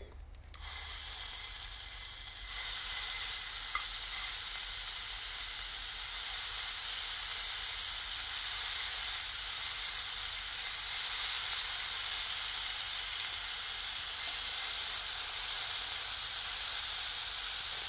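Salt-and-garlic offal (horumon) sizzling in a cast iron skillet over a charcoal shichirin grill. The sizzle starts about half a second in, grows louder a couple of seconds later, then holds steady.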